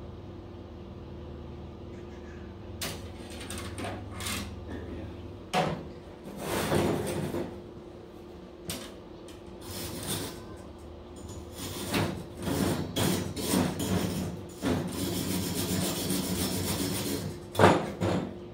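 Arc welding of the fire pit's legs: irregular crackling bursts of the arc, with a longer stretch near the end, over a steady electrical hum.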